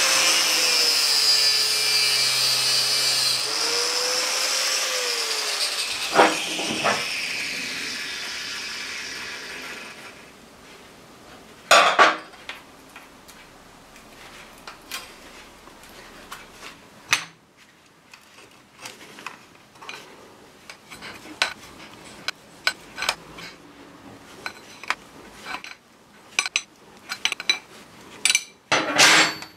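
Angle grinder with a thin cutting disc cutting through stainless-braided oil cooler hose. Its motor pitch dips twice as the disc bites, then it spins down over a few seconds after it is switched off. After that come scattered clicks and metallic taps from hose fittings and tools being handled, with a louder clatter near the end.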